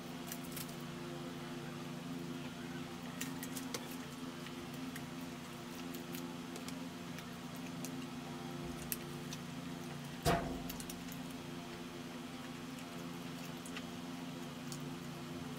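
Fried chicken being torn apart by hand and chewed: scattered small crackles and clicks over a steady low hum, with one louder thump about ten seconds in.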